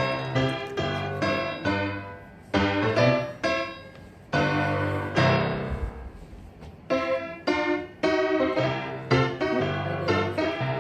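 Piano background music: chords and melody notes struck in a lively rhythm.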